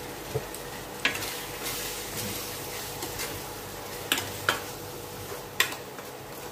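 Ground meat sizzling faintly in a stainless steel pan while a metal spoon stirs it, clinking sharply against the pan a few times: once about a second in, then several times between four and six seconds.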